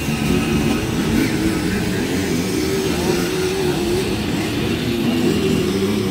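Several Simson two-stroke engines on dirt-track race bikes running at low speed together, their notes overlapping into one steady, slightly wavering sound.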